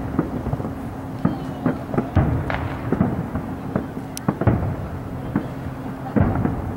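Aerial firework shells bursting: a boom every second or two, with smaller pops and crackles in between.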